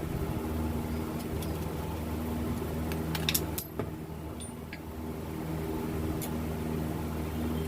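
A steady machine hum, like an engine or motor running, with a few sharp clicks about three seconds in.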